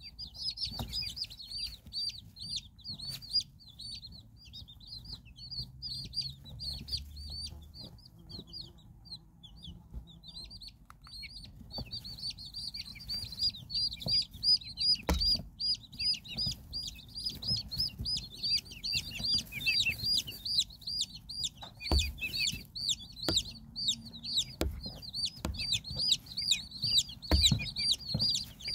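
Chicks peeping: a steady stream of short high cheeps, several a second, thinning out about ten seconds in and then growing denser. A few soft knocks come in the second half.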